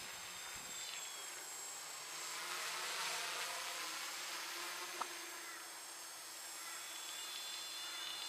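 Homemade tricopter's electric motors and propellers buzzing faintly overhead, swelling a little a few seconds in. A single short click about five seconds in.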